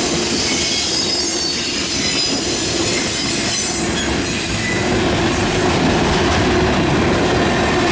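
Freight cars of a Norfolk Southern manifest train rolling steadily past, steel wheels squealing and clattering on the rails.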